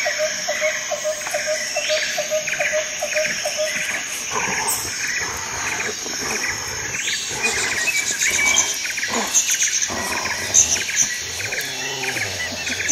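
A dog growling as it tugs at and bites a cardboard beer carton, the growls coming mostly in the second half. A repeated high chirping runs underneath throughout.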